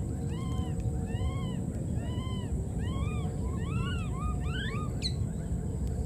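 Baby monkey crying: a run of thin, arched, meow-like calls that each rise and fall, at first about one a second and then quicker and closer together, ending in a short falling squeak about five seconds in.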